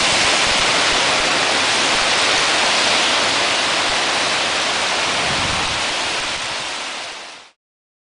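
Sound effect of a large fire burning: a steady rushing hiss that fades out near the end.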